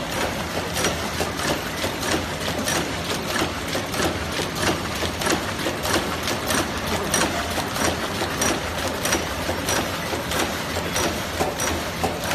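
Blister cartoning machine line running: a busy, rhythmic clatter of clicks and knocks from its feeding and boxing mechanisms over a steady low motor hum.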